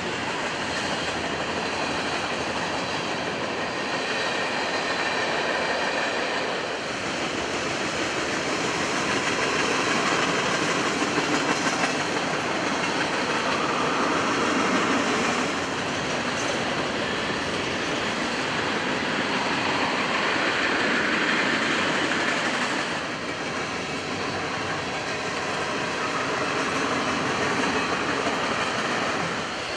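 Cars of a long mixed freight train rolling past on the track: steady steel-wheel-on-rail noise, shifting in level a few times.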